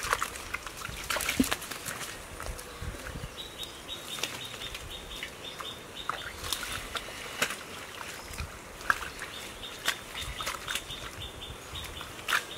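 Hands squelching and splashing in wet mud and shallow water, with irregular wet slaps and sloshes. A rapid series of high chirps sounds twice in the background, a few seconds in and again in the second half.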